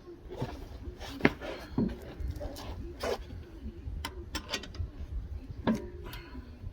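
Scattered clinks and knocks of hand tools and metal parts being handled, a dozen or so irregular strikes over a low rumble, the sharpest about a second in and near the end.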